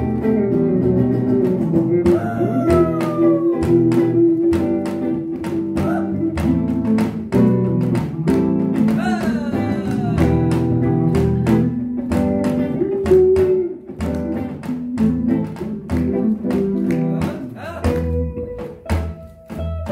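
Live music from guitar, electric bass and janggu (Korean hourglass drum), the drum striking a steady run of sharp beats under the plucked guitar and bass lines.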